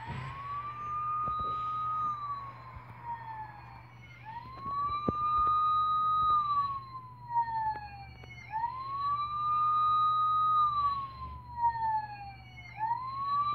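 An ambulance siren wailing: each cycle rises quickly, holds, then slides slowly down, repeating about every four seconds.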